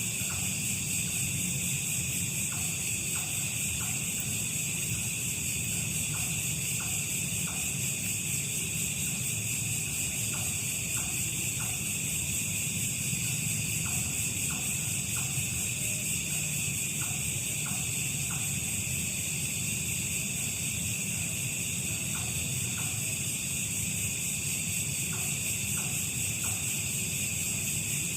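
A steady, high-pitched chorus of insects, with a low hum beneath and faint short clicks in quick groups of two or three every few seconds.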